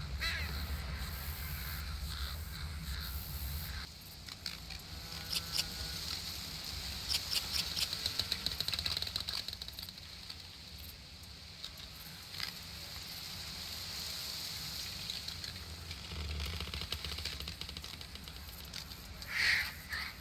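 Outdoor summer ambience of wild birds calling: scattered chirps, a fast trill about seven seconds in, and two louder chirps near the end. A low rumble underneath drops away about four seconds in.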